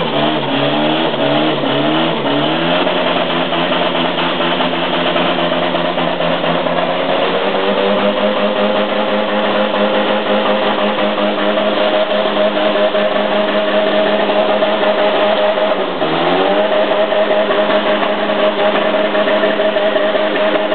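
Mitsubishi VR-4 engine with no piston rings being revved hard in repeated climbing sweeps, then held at high revs against the rev limiter, dipping once briefly near the end and climbing back. The missing rings give it maximum blowby, filling the space with smoke.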